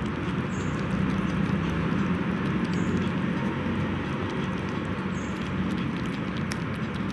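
Three puppies eating rice from a plastic plate: a dense run of small wet chewing and smacking sounds over a steady low hum.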